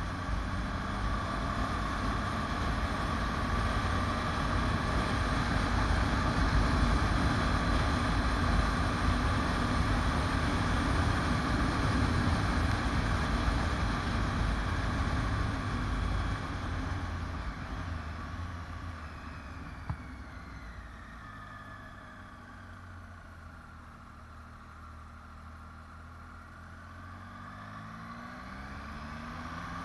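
Motorcycle running downhill with engine and wind noise, louder in the first half. Past the middle the sound drops away as the engine revs fall, then the revs climb again near the end as the bike goes into a bend.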